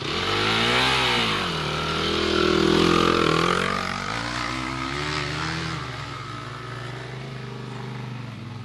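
Quad bike (ATV) engines revving on an uphill climb. The pitch rises and falls about a second in, the engine is loudest about three seconds in as a quad passes close by, and a steadier, quieter engine note follows.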